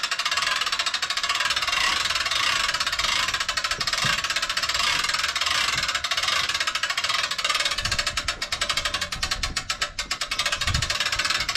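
Manual pop-up camper roof-lift winch being hand-cranked to raise the roof, its ratchet pawl clicking rapidly and steadily, with a few low knocks along the way.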